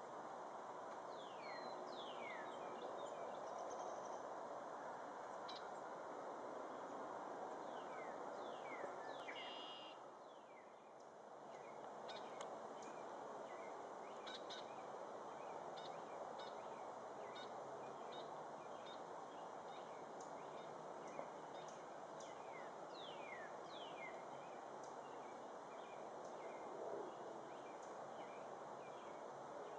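Faint outdoor ambience of several birds chirping: many short calls, some sliding quickly downward in pitch, over steady background noise that briefly drops away about ten seconds in.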